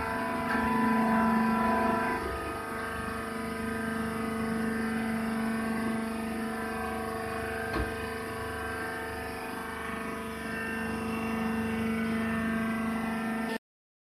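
Wood shaving baler machine running: a steady mechanical hum made of several held tones, with one sharp click about eight seconds in. The sound cuts off abruptly just before the end.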